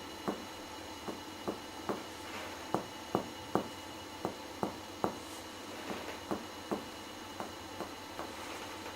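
Finger-on-finger percussion of a patient's chest: sharp taps of the striking finger on the pleximeter finger in groups of three, about a second apart, as each spot is sounded in turn. The note is a clear pulmonary (resonant) percussion sound, the normal finding over healthy lungs.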